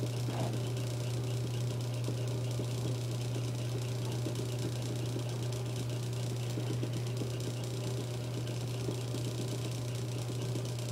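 Electric motor of a rotating Christmas tree stand humming steadily as the tree turns.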